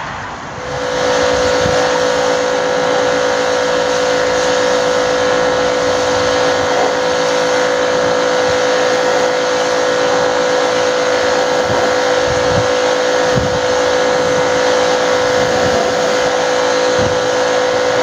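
Electric pressure washer starting about a second in and then running steadily: a constant motor hum under a hissing water spray, used to clean an air-conditioning condenser unit.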